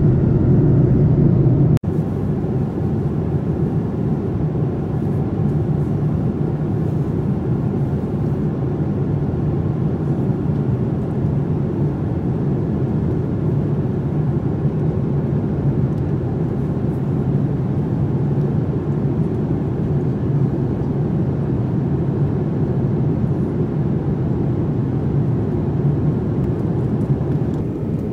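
Steady cabin roar of a Boeing 787-9 airliner in flight, the low rush of engines and airflow heard from an economy seat. There is a brief break about two seconds in.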